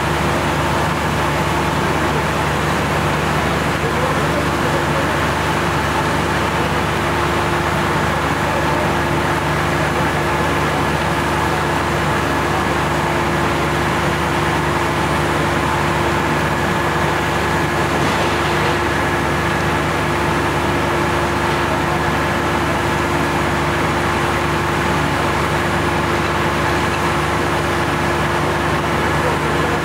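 Fire engine's motor running its pump at a steady speed, a constant drone with a few held tones over a dense hiss from the water jets and the fire.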